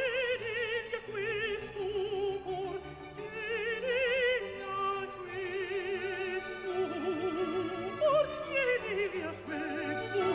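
A countertenor singing an operatic aria over orchestral accompaniment, with wide vibrato on held high notes and a quick descending run near the end.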